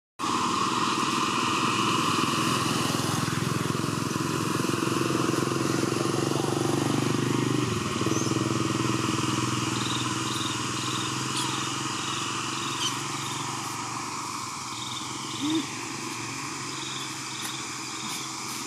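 A motor engine running steadily, then cutting off about eight seconds in. After it stops there is quieter outdoor background with short high chirps repeating in little groups of two or three.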